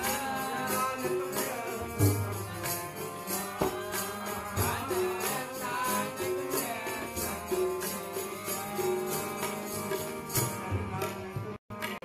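Sikh kirtan: a devotional hymn sung over harmonium and tabla, with a steady rhythm of drum strokes. The audio cuts out for an instant near the end.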